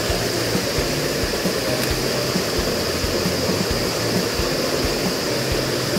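Small mountain creek rushing steadily as it spills over a little waterfall and between rocks.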